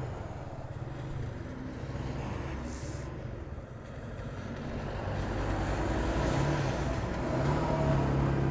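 Motorcycle engine running at low speed in wet traffic, with tyre and spray noise from the rain-soaked road; it grows louder over the second half.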